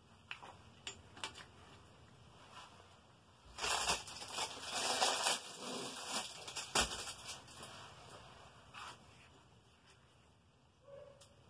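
Hands working small tools and plastic bicycle parts: scattered light clicks, then a couple of seconds of rustling and scraping, and a single sharp knock about seven seconds in.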